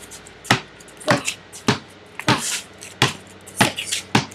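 Basketball being dribbled on hard ground: a sharp bounce about every half second or so.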